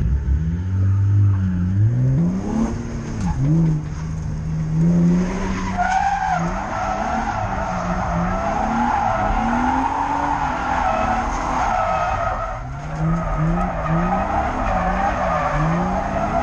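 Drift car engine revving up and down over and over under throttle, and from about five seconds in the tyres squealing steadily as the car slides sideways.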